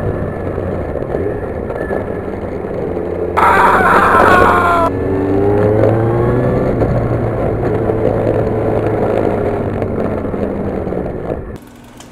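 Motor vehicle engine running on the road with a steady low drone. About three and a half seconds in a brighter, higher-pitched sound joins for about a second and a half, then the engine pitch rises and falls. The sound cuts off abruptly near the end.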